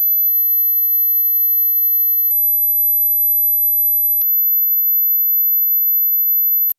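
Very high-pitched steady pure sine tone from a hearing-age test, held at one pitch and cutting off suddenly near the end. A couple of faint clicks sit under it.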